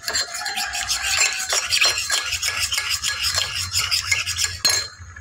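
A spatula stirring sauce in a metal wok, with quick repeated scraping strokes against the pan as thickener is stirred in. A single sharp knock comes near the end.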